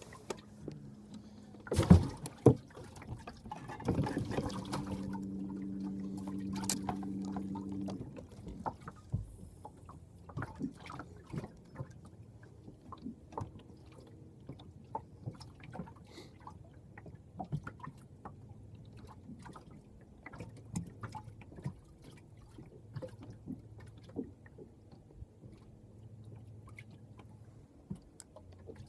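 Water splashing and dripping on a small fishing boat, with two sharp knocks about two seconds in and scattered small clicks after. A steady hum runs for about four seconds early in the stretch, then stops.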